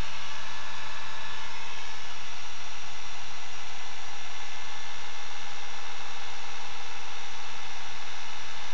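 Small electric window motor running on a Bedini pulse circuit: a steady, unchanging whine.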